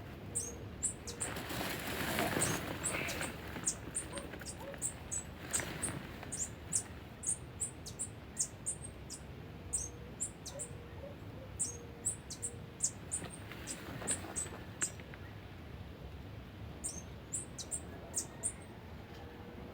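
Small birds chirping over and over: short, high chirps about one or two a second, with a few spells of rustling, as of tent fabric or poles being handled.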